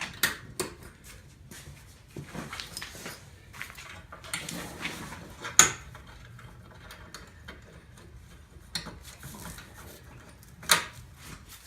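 Scattered metal clicks and knocks of clamps and fittings being handled while reassembling a Graco S340e pump's hopper, with a sharp clank about five and a half seconds in and another near the end.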